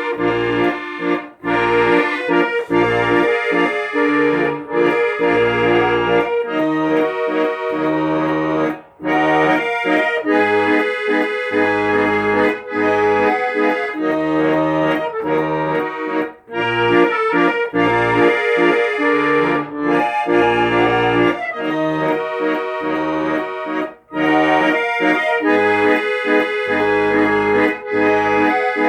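Accordion music: a sustained melody and chords over a pulsing bass line, with short breaks between phrases.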